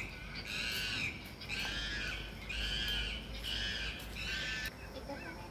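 A run of about six animal calls, roughly one a second, each about half a second long, which then stop.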